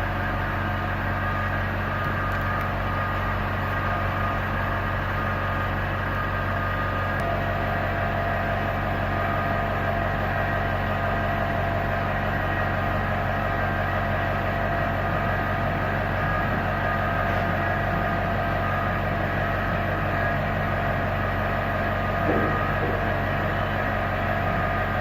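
Steady hum of workshop machinery running, several held tones over a low drone, unchanging throughout, with one small bump about 22 seconds in.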